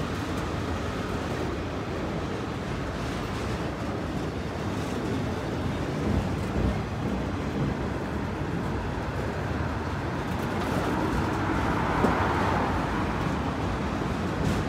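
Loaded autorack freight cars rolling past close by: a steady noise of steel wheels on rail, with a couple of louder knocks about six and twelve seconds in.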